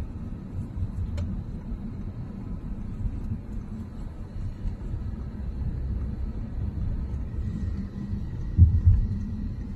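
Low, steady road and engine rumble inside a moving car's cabin, with one louder low thump near the end.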